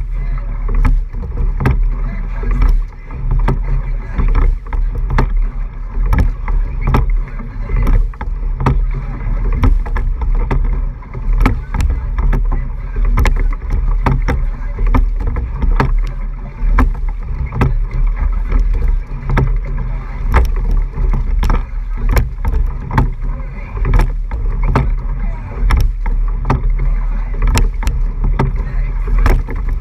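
A racing eight under way, heard from a camera low on its hull: water rushing past makes a heavy, steady rumble. Frequent sharp clicks and knocks run through it from the boat and oars working.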